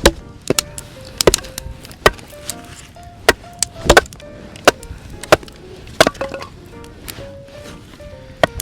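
Firewood being chopped and split: a dozen or so sharp wooden strikes at an irregular pace, over soft background music.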